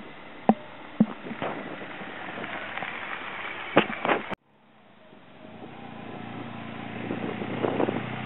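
Wind buffeting the microphone with a few sharp knocks, then after a sudden cut a BMW R1200GS Adventure's flat-twin engine running steadily, growing louder as the bike approaches and passes.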